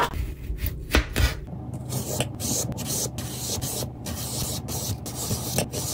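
Cucumber being cut: repeated rasping scrapes of a blade on the cucumber, with a couple of knocks in the first second or so.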